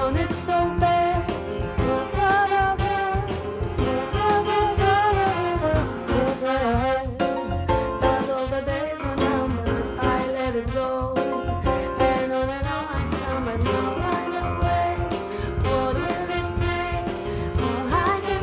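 Jazz ballad played by a small band of piano, double bass, drums, trumpet and saxophone, with a woman singing the melody.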